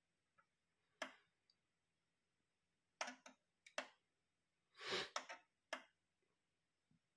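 Denon DP-47F direct-drive turntable's front-panel buttons and automatic tonearm mechanism making a series of sharp clicks, with a longer, noisier burst about five seconds in.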